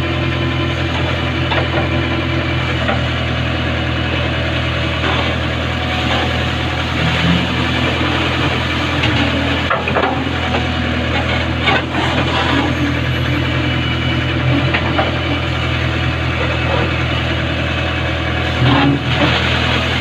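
Backhoe loader's diesel engine running steadily while the backhoe arm digs, with a few sharp clanks from the bucket and arm.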